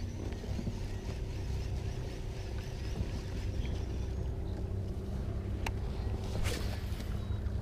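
Ambience aboard a small boat on a river: a steady low rumble with a faint hum, broken by one sharp click a little past the middle and a short hiss soon after.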